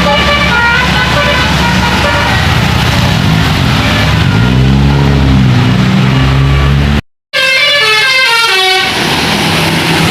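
Tour bus telolet horns playing a melody of short stepped notes, then a bus engine rising in pitch as it pulls away. After a brief cut to silence, another fast run of horn notes, then the engine running steadily.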